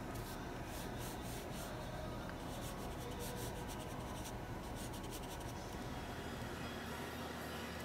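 Flat paintbrush bristles stroking and dabbing paint onto paper in many short strokes, which stop about five seconds in, over a faint steady low hum.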